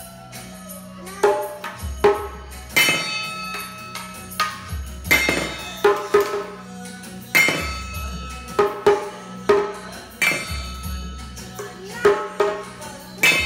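Steel cooking pots beaten with sticks as a makeshift drum kit: sharp clanging strikes that ring on, about one or two a second in a loose, uneven beat, over a devotional song playing in the background.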